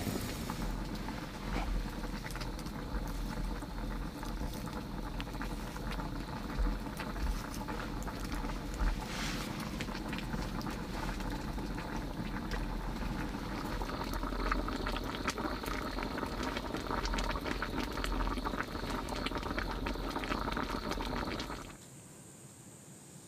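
A wood fire crackling and hissing, with a dense run of small pops and ticks. Near the end it cuts off abruptly to a quiet night with faint, steady insect chirring.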